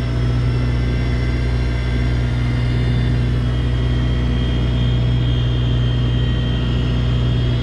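Fishing boat's engine running steadily, a constant low hum, with a thin high whine above it.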